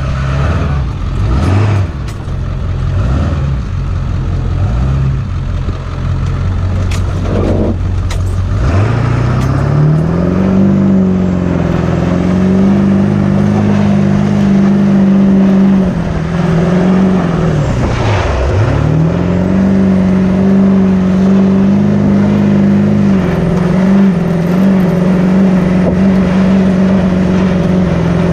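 Ford F-250's 7.3-litre Powerstroke turbodiesel V8 revving hard as the truck spins its wheels sliding on grass. About nine seconds in the revs climb and hold high and steady, drop away twice in quick succession in the middle, climb again, and dip once more near the end.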